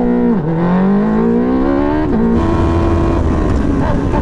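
Formula Predator's single-seater race car engine heard onboard while pulling away: the revs climb, drop at a gear change about two seconds in, then hold steadier as wind and tyre noise rise. The engine is newly fitted and being run in at gentle revs.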